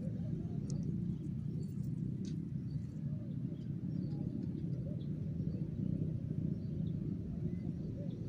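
Steady low outdoor rumble, like wind on the microphone or distant moving water, with a few faint, short, high bird chirps now and then.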